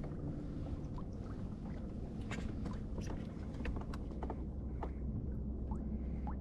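Small waves lapping against a kayak hull: irregular light plinks and splashes over a low steady rumble.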